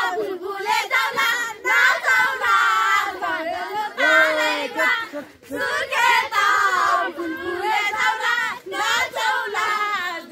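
A group of girls singing a song together, loud and cheerful, in drawn-out wavering notes.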